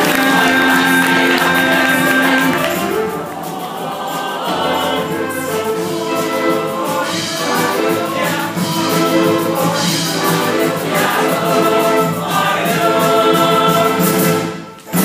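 Show choir singing in harmony over a musical accompaniment, with long held notes at first and then a moving, rhythmic passage; the sound cuts out abruptly near the end.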